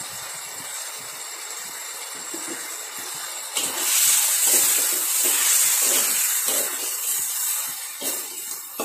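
Duck pieces sizzling in oil in a steel wok. About three and a half seconds in, the sizzle turns much louder as a metal spatula stirs and tosses the meat, with repeated scrapes of the spatula against the wok.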